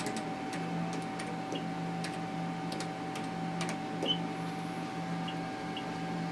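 Ultrasound scanner in use: scattered sharp clicks and ticks from its controls over a steady electrical hum that pulses in a low band.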